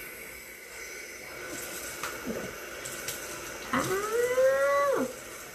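Faucet running into a bathroom sink while water is splashed onto a face and runs off it during rinsing. About four seconds in, a drawn-out wordless vocal sound rises slightly in pitch and holds for about a second; it is the loudest thing here.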